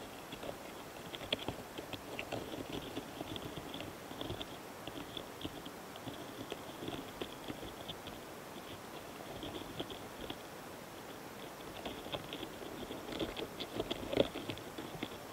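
Close-miked Gaurotes doris flower longhorn beetles courting and mating on a flower head: a run of fine scratchy crackles and clicks as their legs grip and shift on the florets, with short high ticks among them. The crackling is loudest near the end as one beetle climbs away onto a petal.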